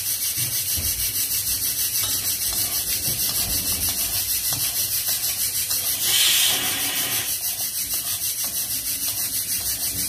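Spoon stirring and scraping through a pan of cauliflower sabzi as the spices go in, with a few soft knocks. Under it is a steady, fast-pulsing hiss, and there is a louder rush of hiss lasting about a second around six seconds in.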